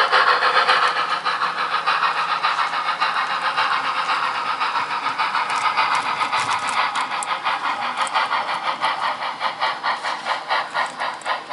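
Model railroad locomotive running with the ore train, making a fast, even, rhythmic chuffing beat that slowly fades toward the end.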